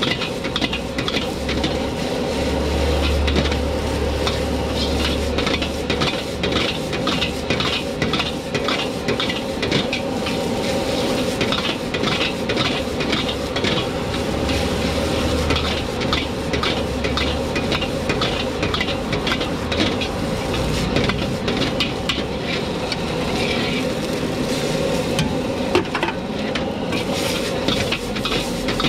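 Egg fried rice sizzling in a wok while a metal ladle scrapes and clanks against the wok in quick, continuous strokes as the rice is stirred and tossed.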